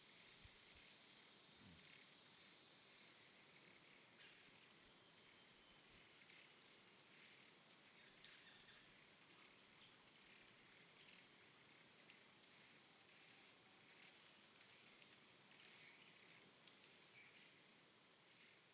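Near silence with a faint, steady, high-pitched insect chirring.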